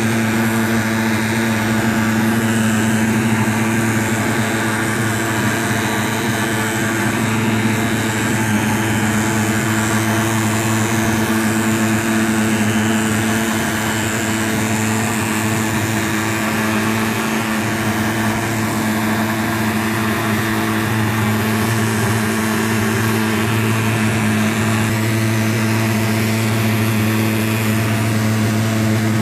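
PulsFog K-10 thermal fogger's pulse-jet engine running steadily with a loud, even drone as it pumps out insecticide fog.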